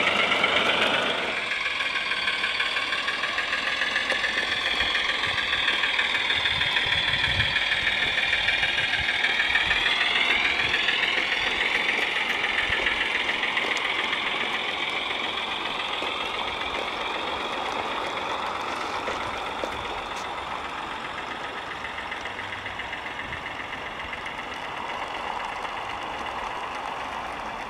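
Recorded diesel engine sound of a Gauge 1 Class 03 shunter model, played by its DigiSound sound card through the locomotive's small onboard speaker. It runs steadily with a thin, pulsing engine beat that has little bass, and fades gradually as the locomotive moves away.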